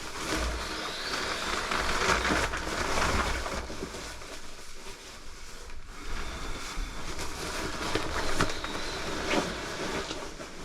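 Wind gusting across the microphone: a rushing noise that swells and eases, with a low buffeting rumble and a few short crunches.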